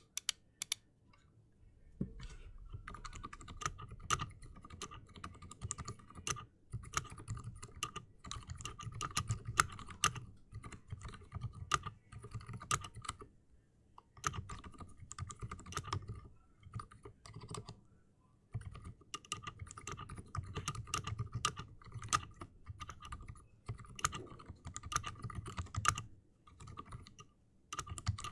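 Typing on a custom mechanical keyboard with Silent Alpaca linear switches on a brass plate: quiet, muted keystrokes in fast runs. The typing starts about two seconds in and pauses briefly a few times.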